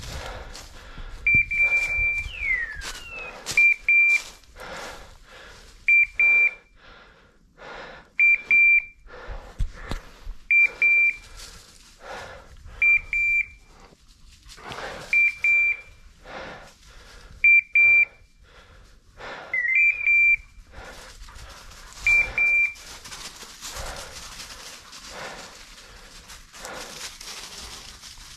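A hunting dog's beeper collar sounding short, high, steady beeps in pairs about every two and a quarter seconds, over steady crackling footsteps through dry brush. The beeps stop after about 22 seconds.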